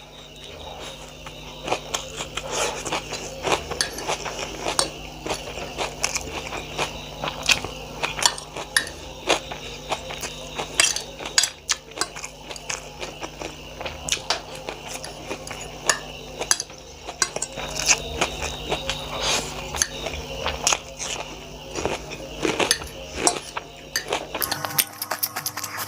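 Someone eating chow mein close to the microphone: utensils clicking and clinking against a plate, with chewing, over a steady low hum. Music comes in near the end.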